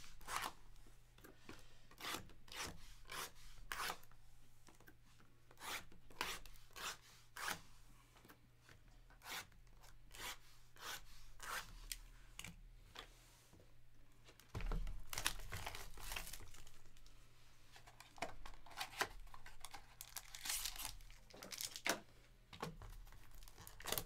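Clear plastic shrink-wrap being torn off trading card boxes in many short, quick rips, with cardboard boxes rubbing and being handled. About halfway through, a louder stretch of rubbing and low knocks as the boxes are moved.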